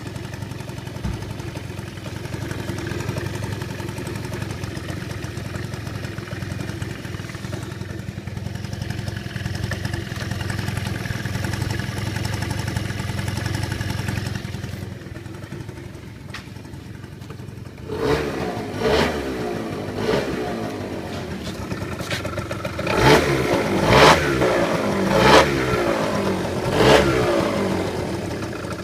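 Engine idling steadily, then revved in several short blips from about two-thirds of the way in. The owner hears something knocking in it.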